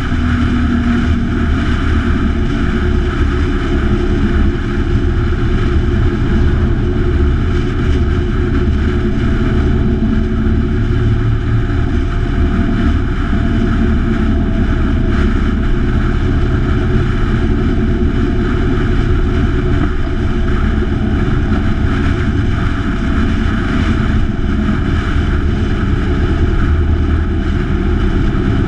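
Motorcycle engine running steadily at highway cruising speed, with wind noise rushing over the bike-mounted camera.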